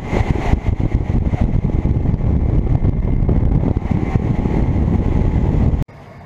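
Yamaha Pro V outboard motor running at speed as a bass boat planes across the water, with wind on the microphone and the rush of the wake in a loud, steady rumble. It cuts off abruptly near the end to quieter outdoor background.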